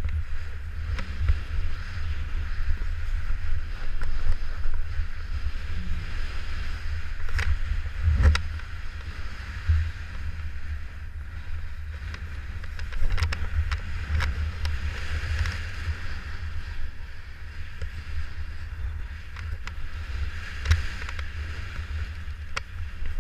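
Wind buffeting the microphone of a jumper's point-of-view camera while descending under an open parachute canopy: a gusty low rumble with a steady airy hiss above it, and a few brief clicks.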